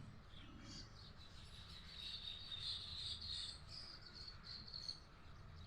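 A flock of birds chirping together, a dense high twittering that swells from about two seconds in and eases off near the end.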